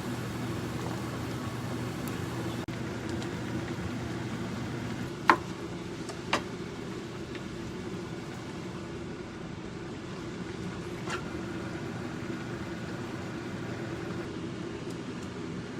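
A steady machine hum, as from a fan or appliance motor, with a few sharp clicks: the loudest about five seconds in, another a second later, and a fainter one near the end.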